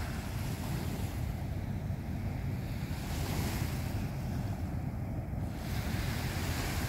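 Small waves washing onto the beach, swelling into a hiss twice, about three and six seconds in, over a steady low rumble of wind on the microphone.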